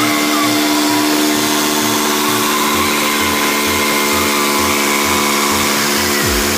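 Background dance-remix music: a sustained chord over a pulsing bass line that alternates between two low notes about twice a second, with falling bass sweeps near the end.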